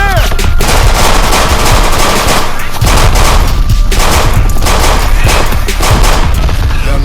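Battle gunfire: many overlapping gunshots in rapid, continuous volleys, including what sounds like automatic fire.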